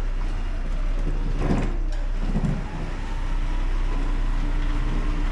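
A vehicle engine running steadily with a continuous low rumble. A couple of brief louder sounds come about one and a half and two and a half seconds in, and a faint steady whine comes in over the last couple of seconds.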